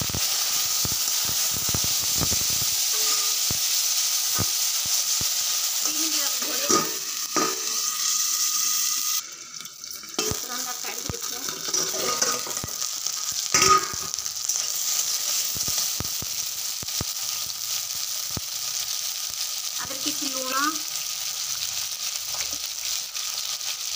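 Diced brinjal and potato sizzling in hot oil in a kadai as a steady hiss, sautéing, with scattered clinks and knocks against the pan. The sizzle dips briefly a little before halfway.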